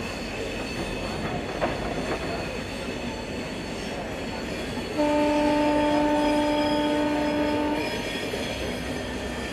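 Rajdhani Express passenger train running on the track with a continuous rumble of wheels on rails and a sharp click about a second and a half in. Halfway through, a train horn sounds one steady note for about three seconds.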